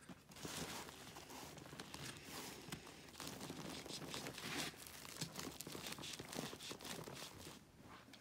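Backpack shoulder-strap fabric rustling and scraping under the fingers, with many small plastic clicks, as a tight sternum-strap slider is forced onto its sewn-in track.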